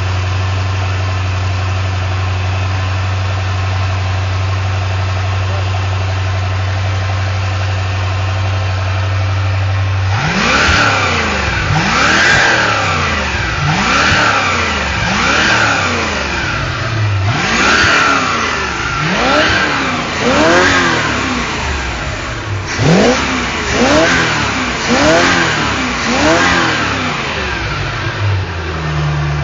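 MerCruiser 5.7-litre small-block V8 sterndrive engine idling steadily for about ten seconds, then revved in a series of quick blips, each rise and fall a second or so long. It settles back to a steady idle near the end.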